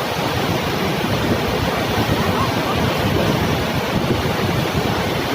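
Loud, steady rush of swollen floodwater after heavy rain.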